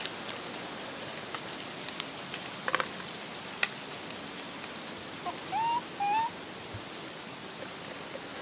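Small wood fire crackling, with scattered sharp pops over a steady hiss. About five and a half seconds in, a bird whistles two short rising notes, the loudest sound here.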